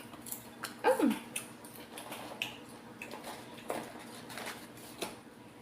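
Scattered light clicks and crunches from microwave popcorn being handled and eaten, with a short falling voice-like sound about a second in.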